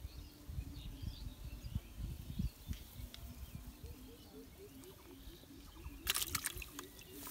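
Outdoor ambience with faint bird chirps early on. From about halfway, a rhythmic run of short low croaks comes, about four a second, from an animal. A brief cluster of sharp clicks and rustles sounds near the end as the fish is handled off the hook.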